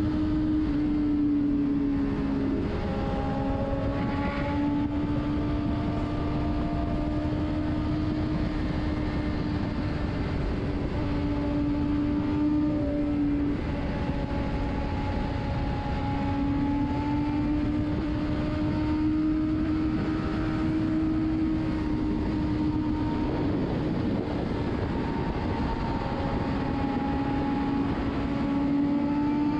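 Superbike engine running at a steady cruising speed, heard from the rider's seat under heavy wind rush; the engine note wavers slightly in pitch a few times but never revs hard.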